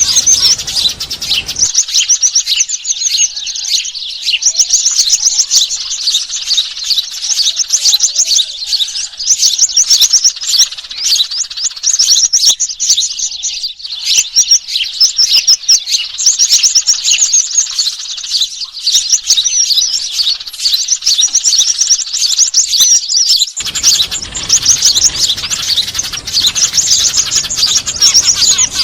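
Dense, continuous chattering of a crowd of small birds, sparrows among them, with rapid overlapping chirps and twitters. It is a bird-lure recording made to draw small birds in. A faint background hiss drops out about two seconds in and comes back near the end.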